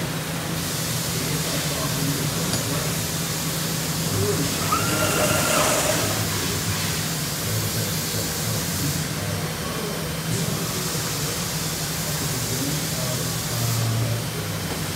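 Trumpf TruLaser 2030 CO2 laser cutter running while it cuts: a steady hiss with a low hum underneath, and a brief higher tone about five seconds in.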